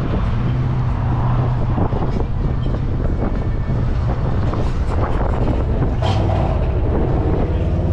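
Motorcycle engine running nearby with a steady low note, with some wind on the microphone.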